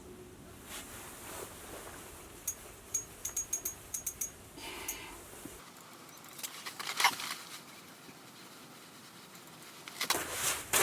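A run of small, sharp clicks, with brief rustling now and then and a denser flurry of clicks and rustles near the end.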